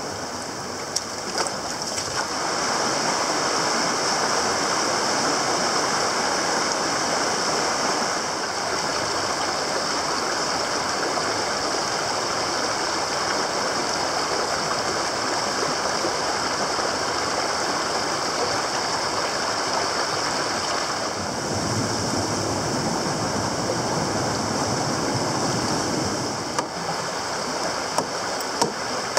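Mountain stream rushing over rocks, a steady noise throughout. Near the end, a few sharp knocks of a hatchet chopping wood.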